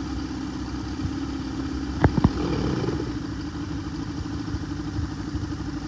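A small boat's motor idling steadily at low throttle, with two sharp knocks about two seconds in.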